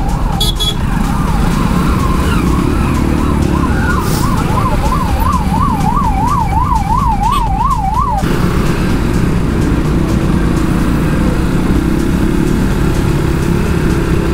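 Ambulance siren making a fast up-and-down wail. It is faint at first, grows loud about four seconds in and cuts off suddenly about eight seconds in, over the steady low rumble of motorcycle engines and traffic.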